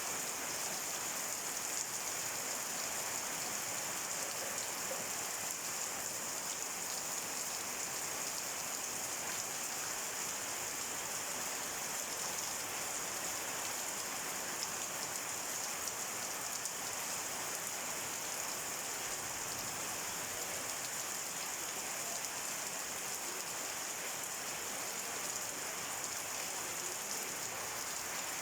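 Steady heavy rain, an even hiss of rain falling on surfaces.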